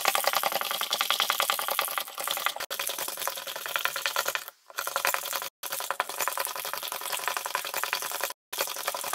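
Fast, continuous clinking rattle of a utensil beating dalgona coffee mixture against the inside of a ceramic mug, played back at triple speed. The rattle drops out briefly a few times.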